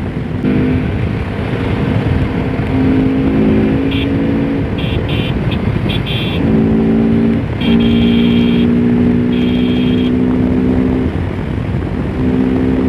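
Bajaj Pulsar RS200's single-cylinder engine running at road speed, its pitch stepping down and up a few times with the throttle, over wind and road rumble. Several short horn honks sound between about four and ten seconds in.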